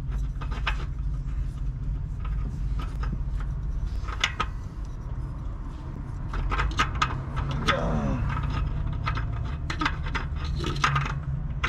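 Irregular metallic clicks, taps and scrapes of a new spin-on oil filter being fumbled by hand against its mount under the car, being fitted hand-tight, over a low steady rumble.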